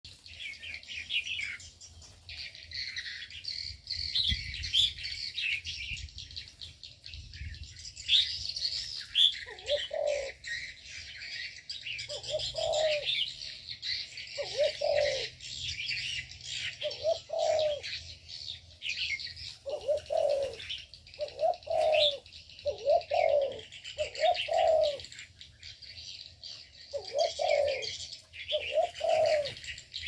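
Aviary birds: many small birds chirping and twittering without a break, and from about ten seconds in a spotted dove cooing in low, separate notes, roughly one every one to two seconds.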